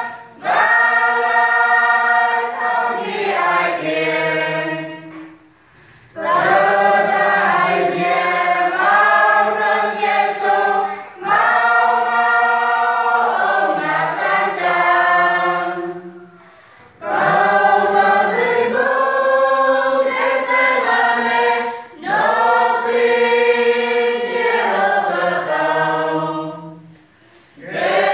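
Church choir of women and men singing a hymn, in phrases of about five seconds with brief pauses for breath between them.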